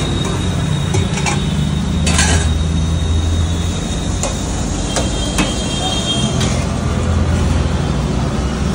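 Several sharp metal clinks and scrapes of a steel spoon and bowl against a large flat griddle while egg batter is spread, over a steady low rumble.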